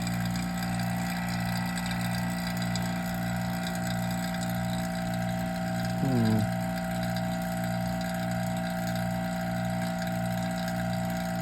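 Vacuum pump for a home-built vacuum furnace running steadily: a constant hum with a slight regular pulsing.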